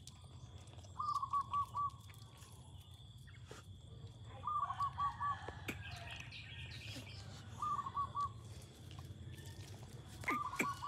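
An animal's short, clipped calls in quick runs of four or five, repeated about every three seconds.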